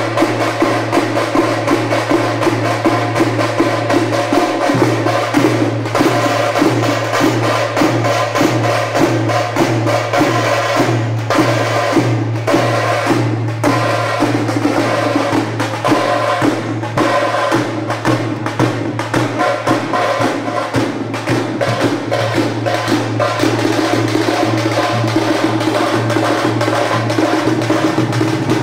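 Music with fast, continuous percussion strokes over a steady droning tone.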